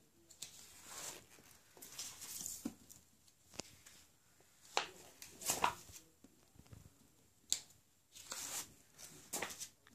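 Paper posters being handled and flipped over one after another: a series of short paper rustles and slides, with quiet gaps between.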